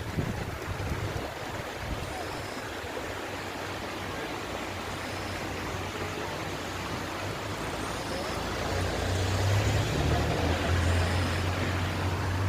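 A motor vehicle's engine hums low and steady, growing louder about eight and a half seconds in, over a steady rushing noise.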